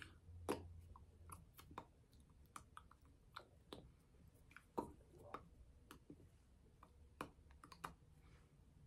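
Near silence with a low hum, broken by a dozen or so faint, irregular clicks and soft taps from hands and fingers meeting and lips moving as a person signs. Two louder clicks come about half a second in and just before five seconds.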